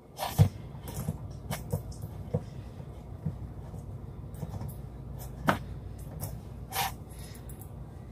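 Fork crimping a pie crust's edge, its tines clicking and tapping against the metal pie pan at irregular moments, over a steady low hum.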